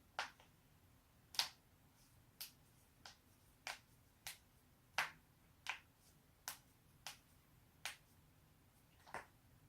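Joints being cracked: a series of about a dozen sharp single pops, one at a time at uneven intervals of roughly a second or less.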